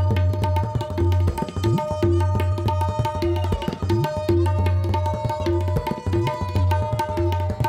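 Tabla played solo: rapid strokes on the treble drum (dayan) over deep, resonant bass-drum (bayan) strokes, some bent upward in pitch by the palm, in a steady fast rhythm.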